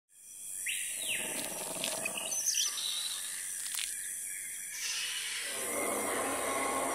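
Jungle ambience fading in, with bird calls and chirps, one longer falling call about a second in. A denser rushing noise takes over near the end.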